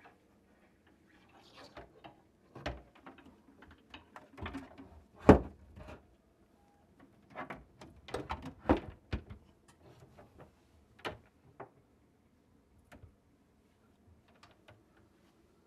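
Hard plastic clicks and knocks as a reverse osmosis filter unit is handled and fitted onto its mounting clip, with softer rustling of tubing between them; the loudest knock comes about five seconds in, and a quick run of clicks follows a few seconds later.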